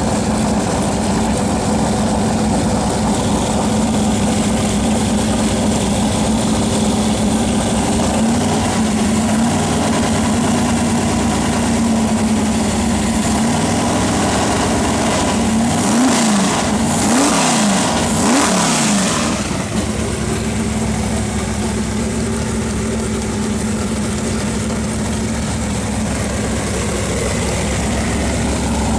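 Big-block Chevy V8 with a wild cam and open exhaust idling, blipped by hand at the carburetor's throttle linkage: three quick revs about halfway through, each rising and falling back, then it settles back to idle.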